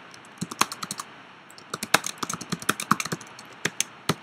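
Typing on a computer keyboard: a quick, irregular run of key clicks, with a short lull a little after the first second.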